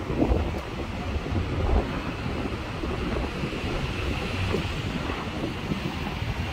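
Wind buffeting the microphone: an uneven low rumble that gusts hardest in the first two seconds, over a steady hiss.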